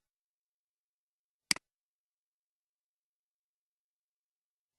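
Short sharp clicks, each a quick double tick: one about a second and a half in and another at the very end, with dead silence between.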